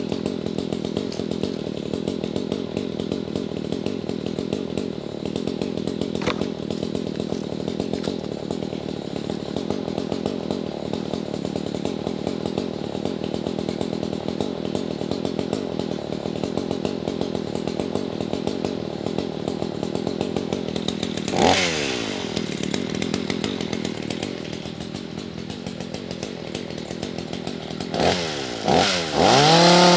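Two-stroke chainsaw engine idling steadily. It is blipped once about two-thirds of the way in, revved twice near the end, then opened up to a steady high-revving run at the very end.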